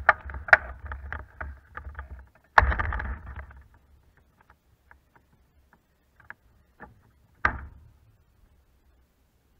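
Zugvogel IIIA glider's airframe rattling and knocking as it rolls over rough grass after landing, the low rumble dying away about two seconds in. A sharp knock follows, then scattered light clicks and one more knock near the end as it sits at rest.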